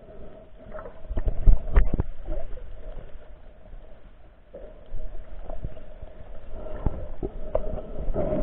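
Muffled underwater sound picked up through a camera housing: irregular knocks and bumps over a low rumble, with a steady hum underneath. The knocks bunch up about a second in and again in the second half.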